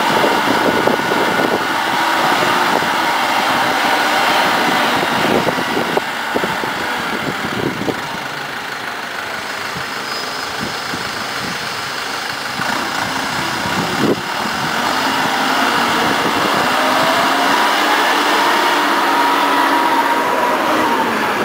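Omega Lift Mega Series 10MS rough-terrain forklift's engine running while the forklift raises a 10,000 lb concrete block on its mast, with a few sharp clanks. The engine eases off in the middle and picks up again about two-thirds of the way through, with a rising tone near the end.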